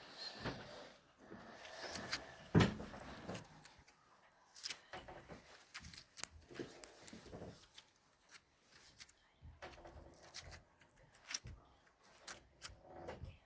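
Slime being worked by hand: an irregular string of small sticky clicks and squelches.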